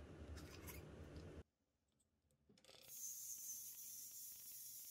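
Ultrasonic cleaning tank running: a faint, steady high-pitched hiss with a thin high tone, starting about three seconds in after a short near-silent gap. Before the gap, a low hum with a few light clicks cuts off abruptly.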